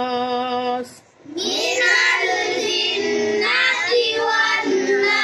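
A man's voice holds the final long drawn-out note of a Quran recitation and stops about a second in. After a short break, a higher-pitched voice sings a wavering melodic line.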